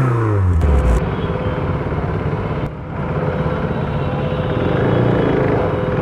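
KTM RC 390's single-cylinder engine with its revs falling away in the first second as the bike slows, then running low amid traffic noise, the revs picking up slightly near the end.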